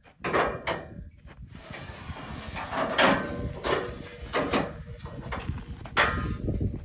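Metal clunks and rattles from a John Deere combine's folding access ladder as its latch handles are worked to unlock and release it: a string of sharp knocks, some with a brief metallic ring.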